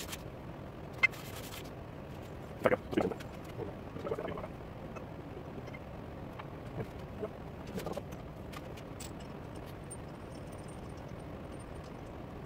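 Short metal clicks and clanks from hands working at a metal lathe's tool post and chuck, the loudest a quick pair a little under a third of the way in, over steady background noise.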